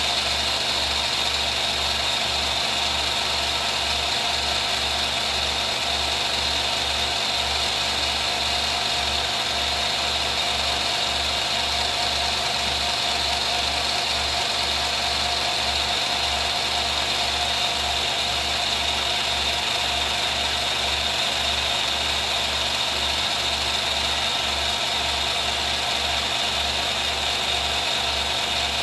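Film projector running steadily: a continuous mechanical whir and clatter from its motor and film-advance mechanism.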